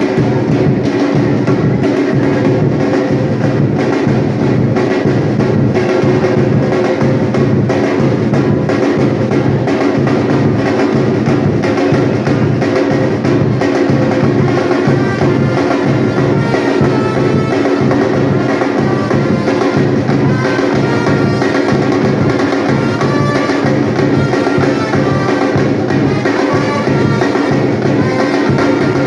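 Batucada percussion ensemble playing: a steady groove of deep drum strokes about twice a second under dense, fast drumming.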